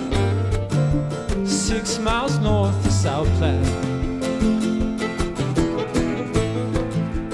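Live band playing an instrumental passage: plucked strings over a moving bass line and a steady drum beat, with a high melody line that wavers and slides about two seconds in.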